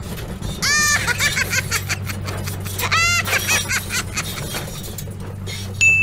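High-pitched, squeaky cartoon-style giggles twice, among sharp clicks of plastic toys being handled, over a steady low hum, with a short electronic beep near the end.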